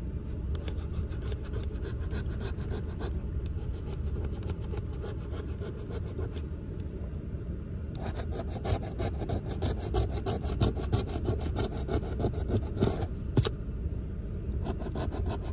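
A coin scratching the coating off a lottery scratch-off ticket: a continuous rasp of rapid short strokes, which grows louder about halfway through.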